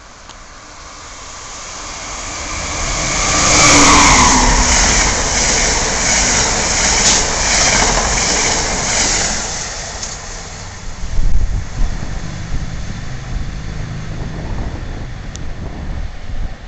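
Amtrak passenger train approaching and passing through the station at speed: a rush of wheels and air that builds to a peak about four seconds in and stays loud while the cars go by. It then falls away to a lower, rough rumble with a few sharp bangs.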